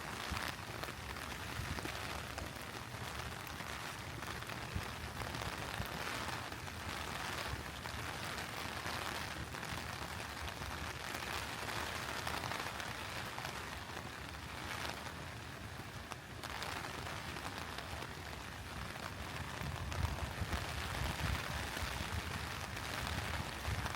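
Steady rain falling, an even hiss throughout; a low rumble comes up near the end.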